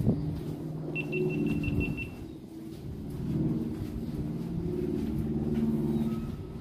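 Low rumble of a vehicle engine running, with a rapid run of short high beeps about a second in.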